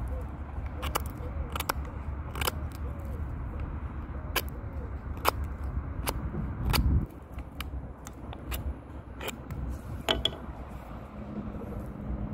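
Folding knife blade carving a wooden stick: a series of sharp, irregular cracks and clicks as the blade bites into the wood and shavings split off.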